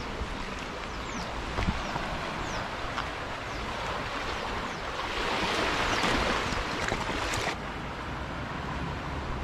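Small sea waves lapping and washing against a concrete pier footing and rocks, with wind rumbling on the microphone. The wash swells louder for a couple of seconds past the middle.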